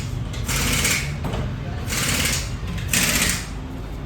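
A small engine running steadily with a fast, even rattle, under bursts of hiss that come and go about every second and a half.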